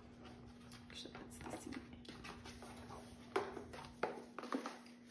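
Boon Grub high chair harness straps being worked through the slots of the plastic seat shell: soft rustling of the straps, with a few sharp clacks as the plastic buckles knock against the seat, once about three and a half seconds in and a couple more near the end. A faint steady hum runs underneath.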